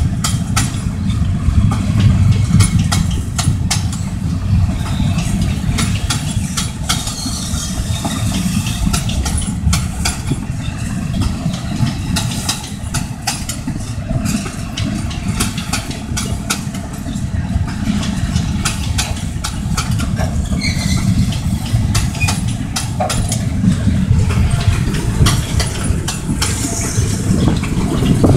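Freight train of steel gondola cars rolling past close by: a steady low rumble of wheels on rail, with frequent sharp clicks and clanks from the wheels and running gear.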